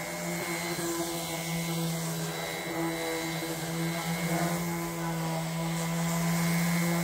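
Electric random orbital sander running steadily while it is worked across bare wooden boards: an even motor hum at one pitch over the hiss of the sanding pad on the wood.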